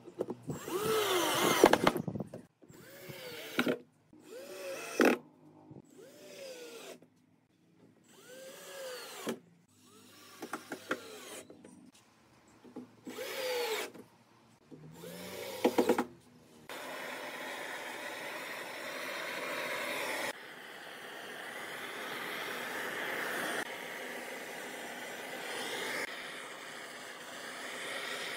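A cordless drill driving screws into wood in a series of short bursts, its motor pitch rising and falling with each trigger pull. From about 17 seconds in, a butane torch flame hisses steadily as it scorches the wood.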